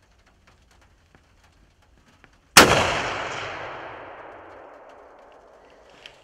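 A single gunshot: one sharp, loud crack about two and a half seconds in, followed by a long echo dying away over about three seconds.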